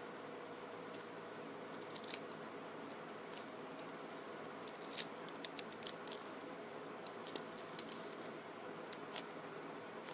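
A foam squishy toy being handled and squeezed in the hands: scattered small clicks and crackles in a few short clusters, over a faint steady room hum.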